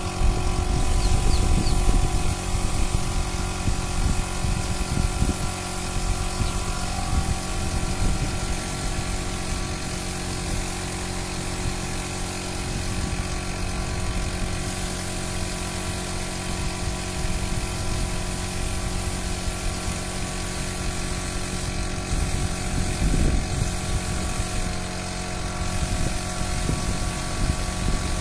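Air compressor running steadily for spray painting: a machine hum holding several fixed tones over a low rumble, with an even hiss above.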